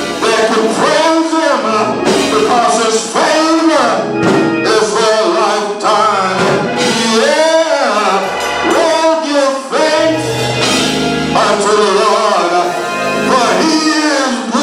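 Gospel song: singers performing over instrumental accompaniment.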